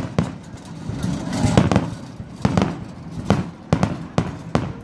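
Aerial fireworks going off in a quick, irregular series of sharp bangs and pops, several each second, over a low rumble.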